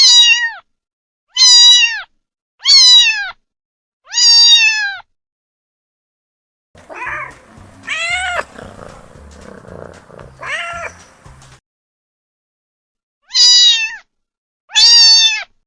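Young kittens meowing: short, high-pitched cries that fall in pitch, about one every second and a half, in two groups at the start and near the end. In the middle there is a run of three fainter meows over a low background hiss.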